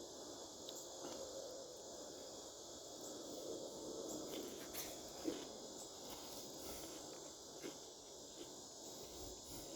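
Quiet chewing of salad close to the microphone, with one sharp click about five seconds in, over a steady high hiss.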